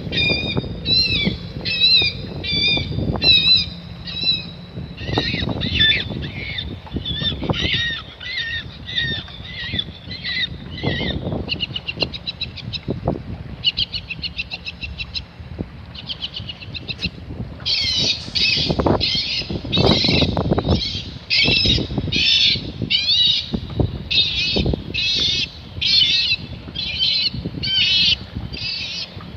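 Bird-scaring loudspeaker system blaring amplified recorded calls of birds of prey to drive gulls away: high, harsh calls repeated in rapid series, then louder calls about once a second near the end.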